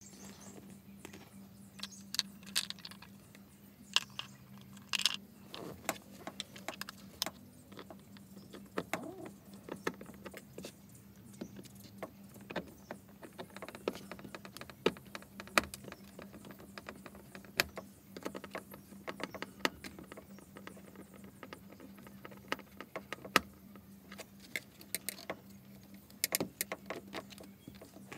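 Screwdriver and hand work on a plastic car door trim: irregular sharp clicks, taps and small rattles as the pull handle is fitted and screwed in, over a faint steady low hum.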